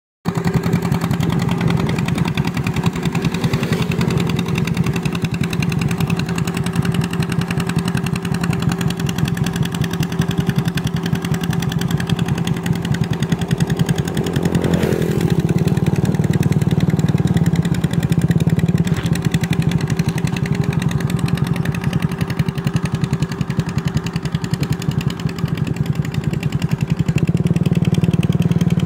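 Two-wheel hand tractor's single-cylinder engine running steadily under load as it works through flooded paddy mud, with a brief shift in pitch about halfway through.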